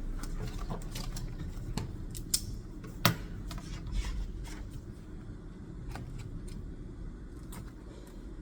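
Small clicks and light rustles of writing things and paper being handled at a study desk, the sharpest click about three seconds in, over a low steady rumble.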